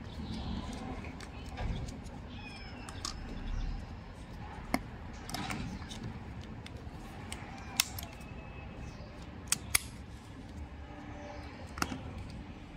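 Handling noise as a PU leather half-case is worked onto a Sony A7 IV camera body: soft rubbing and rustling of leather against the camera, broken by about five sharp clicks, two of them close together about ten seconds in.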